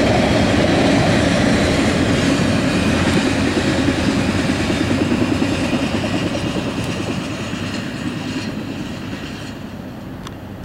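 Double-stack intermodal freight cars rolling past, a steady sound of steel wheels on the rails that fades gradually over the second half as the end of the train goes by.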